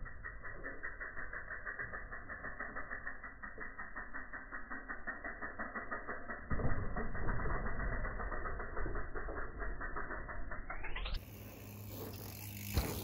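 Mountain bike riding over a dirt jump, its knobby tyres rolling on packed dirt, with a low rumble from about six and a half seconds in as it lands and rolls past. A steady fast ticking runs underneath, and near the end the sound turns to an even hiss with one sharp click.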